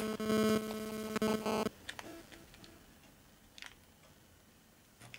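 A steady buzzing hum that cuts off suddenly about a second and a half in, followed by faint small clicks and light handling of a small plastic bag of screws.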